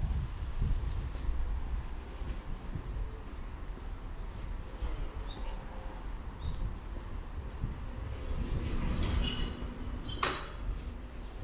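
A steady, high-pitched insect drone whose pitch sinks slowly and then jumps back up about seven and a half seconds in, over a low rumble. There is a single sharp click near the end.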